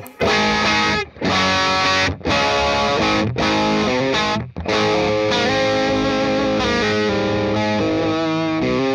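Electric guitar played through a Jackson Audio Golden Boy Mini overdrive pedal set for high gain, hitting the front of the amp hard. Short distorted chords stop briefly about once a second at first, then give way to sustained, ringing chords and notes.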